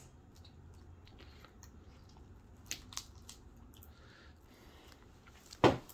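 Sticky homemade glue slime being mixed and kneaded by hand: small squishing and crackling sounds, with two sharper clicks about halfway through and a short loud thump near the end.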